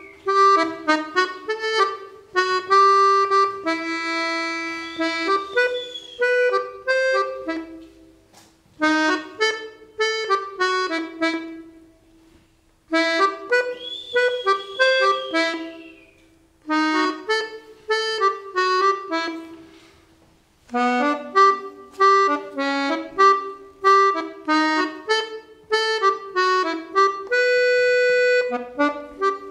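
Instrumental accordion tune of short, quick notes in phrases, with brief pauses between them. A high sliding tone rises and falls near the start and again around the middle.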